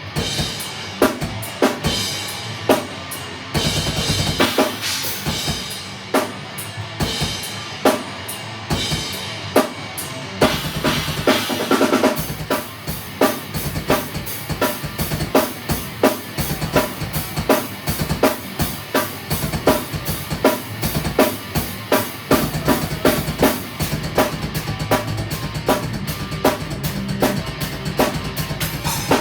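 Drum kit played in a jam, with kick, snare and cymbals. The playing is loose and irregular at first, then settles into a steady, busy beat after about ten seconds. A low held pitched note sounds underneath.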